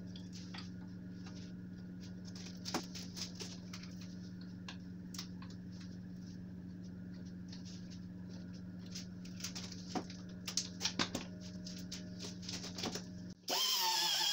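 Light clicks and taps of hand tools being handled against a tyre, over a steady low hum, with a cluster of taps about ten seconds in. Music cuts in suddenly just before the end.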